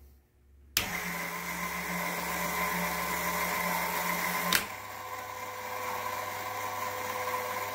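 Dayton electric motor and gearbox of a Sherline lathe's added power feed, driving the carriage along the bed with a steady whir. It starts suddenly under a second in, then a click about halfway through is followed by a change in its pitch as it keeps running.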